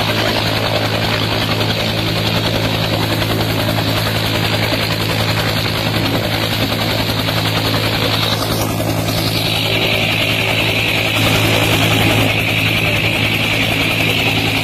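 Helicopter running on the ground with its rotors turning: a steady low hum under a high whine that drops in pitch about nine seconds in.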